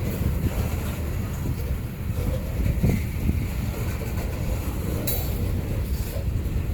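Wind buffeting a phone microphone, a heavy uneven rumble with a brief click about five seconds in.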